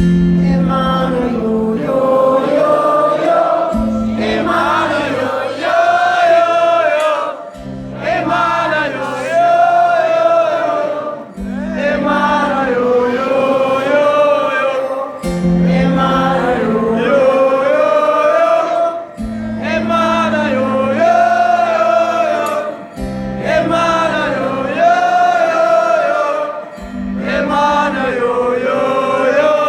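Live band music with wordless singing by several voices, a melody rising and falling over a low bass note that changes about every four seconds.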